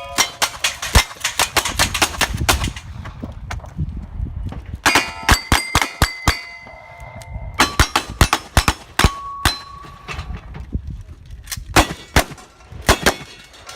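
Rapid gunfire in a cowboy action shootout, shots coming in quick strings, with steel targets clanging and ringing on after hits. The shots are thickest in the first few seconds, and after a short lull come in runs again around the middle and near the end.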